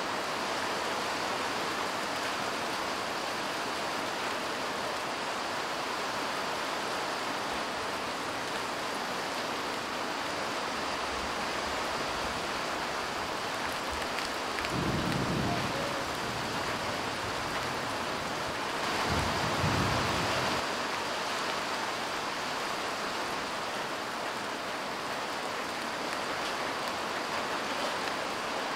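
Steady light rain falling, a constant hiss and patter. About halfway through, and again some four seconds later, a short low rumble of thunder rises over it.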